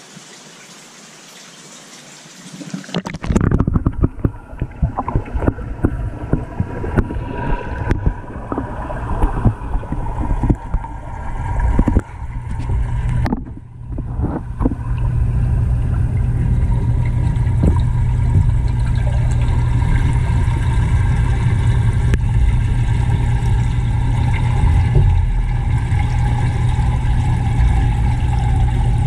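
Water sounds heard under water: about three seconds in the camera plunges into a large aquarium, with splashing, knocks and bubbling for several seconds. The sound then settles into a steady, loud low rumble and hum of the tank's moving water, heard through the camera's waterproof housing.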